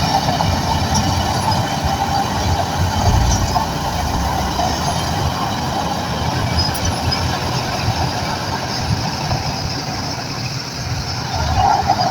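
Shantui crawler bulldozer working: the diesel engine runs under load with a low rumble, and a high squeal from the tracks is strongest in the first few seconds and again near the end.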